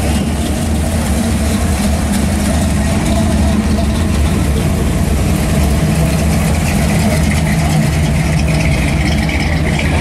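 Classic Chevrolet cars, an early-1970s C10 pickup and then a 1963 Impala, rolling slowly past one after another, their engines running with a steady deep exhaust rumble.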